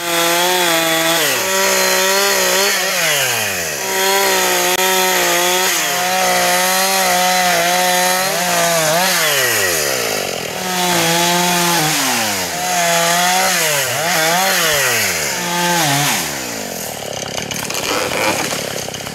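Husqvarna 460 two-stroke chainsaw running at full throttle as it cuts into a hanging hickory limb. The revs fall away and pick up again several times as the throttle is let off and reapplied. It runs quieter and lower near the end.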